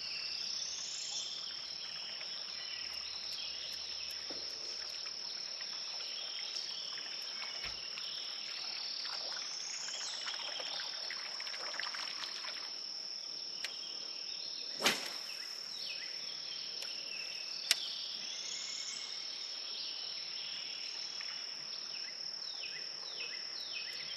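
Steady high-pitched insect chorus, with a rising call that repeats about every eight seconds. Two short sharp clicks sound a few seconds apart past the middle.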